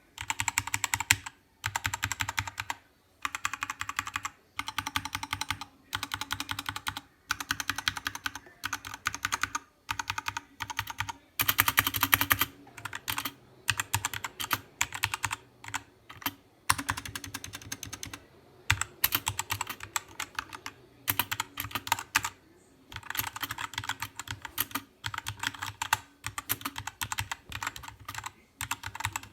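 Ziyoulang T60 mechanical keyboard being typed on in quick runs of keystrokes, each run about a second long with short pauses between them; one run near the middle is louder.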